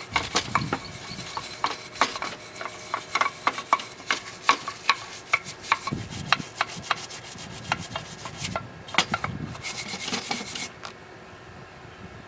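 Hand brush scrubbing a rust-stained Ford 5.0 timing cover in quick, irregular scraping strokes that stop near the end.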